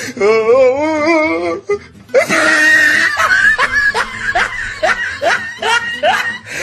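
Comedy audio laid over the picture: a wobbling pitched tone, then from about two seconds in a run of laughter over music, with short rising strokes about three times a second.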